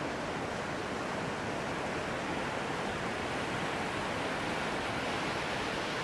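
Small ocean waves breaking and washing up onto a sandy beach, a steady hiss of surf.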